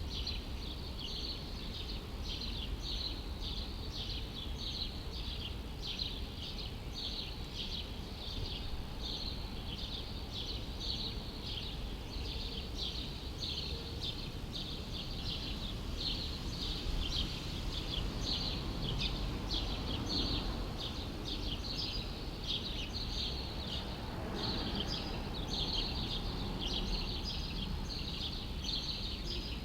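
Many small birds chirping rapidly and continuously over a steady low city rumble. Twice in the second half a broader swell of noise rises and fades.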